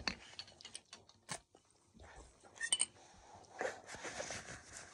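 Quiet scattered clicks and rustles of a phone being handled and moved around.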